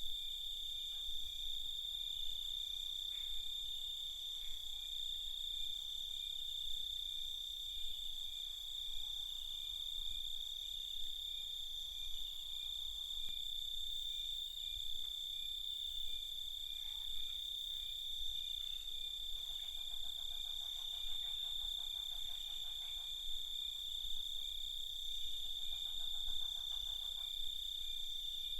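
Night chorus of crickets: a steady, continuous high-pitched trill. Twice in the second half, a lower, rapidly pulsing call joins in for a few seconds.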